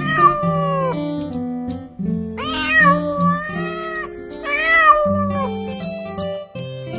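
A kitten meowing three times, the middle meow the longest, over the instrumental backing of a children's song.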